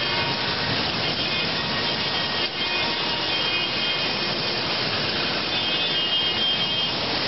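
Zamperla Convoy ride running, its electric-driven cars rolling around the steel track: a steady whirring rumble with a thin high whine that grows stronger near the end.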